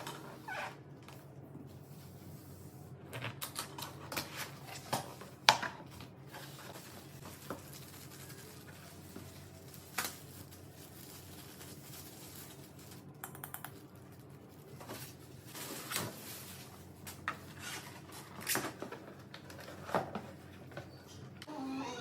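Unboxing an air fryer: the box, packaging and parts are handled, giving scattered knocks, clicks and scratches, with a quick run of clicks about two-thirds of the way through.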